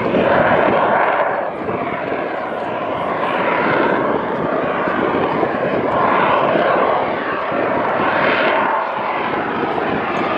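F/A-18 Super Hornet's twin General Electric F414 turbofan engines running in a loud, continuous jet roar overhead. The tone wavers and sweeps up and down as the jet moves across the sky.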